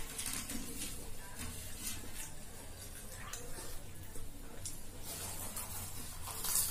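Close-miked eating sounds: fried luchi bread being torn by hand and chewed, heard as scattered soft clicks and crackles with a few wet mouth sounds.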